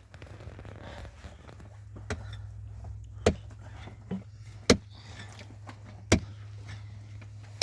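Sharp knocks or strikes, five of them, evenly spaced about a second and a half apart, over a steady low rumble.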